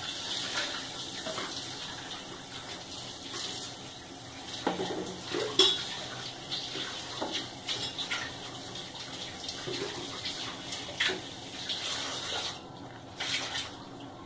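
A metal ladle scraping and clinking against a pan as thick curry gravy and meatballs are scooped out and served, with short knocks scattered through a steady hiss.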